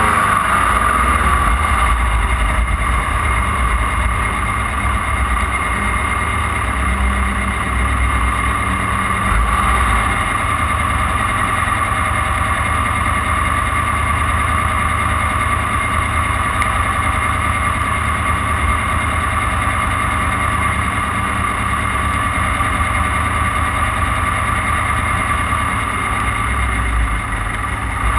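Off-road race car's engine running steadily under way, with a deep rumble that swells and eases and a steady whine over it.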